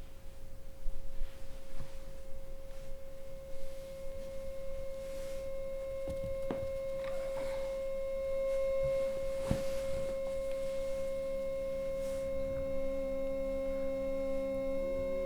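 Electronic drone of a film score: one steady pure tone, with lower tones joining about ten seconds in and further tones stacking up near the end. A few faint clicks and soft noises sound under it.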